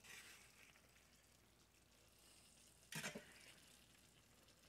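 Mostly near silence, with a faint sizzle of ground beef, onions and peppers frying in a cast-iron skillet and one short scrape of a metal spatula against the pan about three seconds in.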